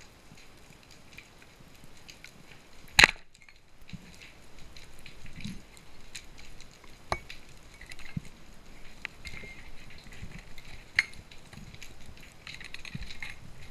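A speargun fired underwater: one sharp, loud crack about three seconds in. Faint scattered clicks and crackles follow.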